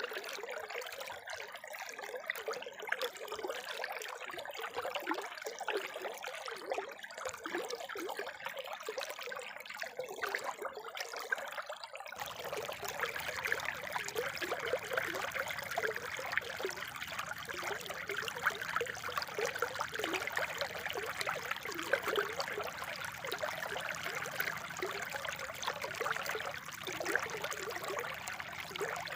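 Spring water trickling and splashing steadily. About twelve seconds in the sound switches abruptly to a fuller, deeper flow, as at an edit between two recordings.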